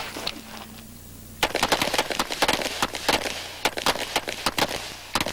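Pistol gunfire on a competition firing line: a rapid, irregular string of sharp shots that starts suddenly about a second and a half in and keeps going almost to the end.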